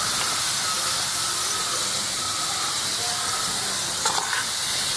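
Sliced onions deep-frying in hot oil in a steel pan: a steady sizzle, the onions fried golden brown and ready to come out. A brief clatter about four seconds in.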